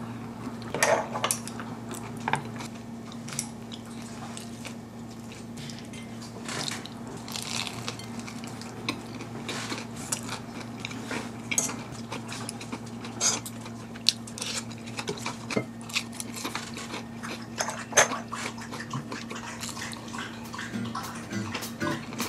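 Metal spoon and chopsticks clinking and scraping against a ceramic bowl during a meal: short, irregular clinks scattered throughout, over a low steady hum.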